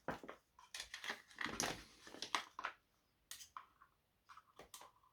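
Short clicks and rustles from handling the truck, then from about three and a half seconds in, several brief high whirs from a small RC servo moving the throttle/brake linkage as it is tested.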